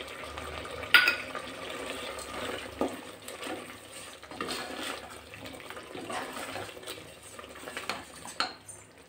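Wooden spoon stirring thick chicken curry gravy in a pressure cooker pot, scraping irregularly against the pot, with a sharp knock about a second in.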